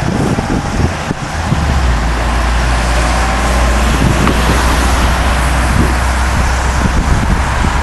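A moving road vehicle: steady road and wind noise over a low engine drone, which grows stronger about a second and a half in and then holds steady.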